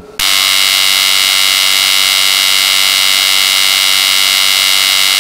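Loud, steady electric buzz sound effect in a channel intro, starting abruptly and holding one unchanging, harsh tone.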